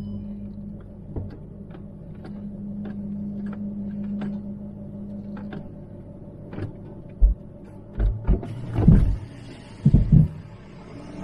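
Range Rover L322 TDV8 diesel V8 running at low revs as it crawls over a rutted dirt track, heard from inside the cabin: a steady low hum with scattered light clicks and rattles. In the second half come several heavy thumps as the suspension and body take the bumps.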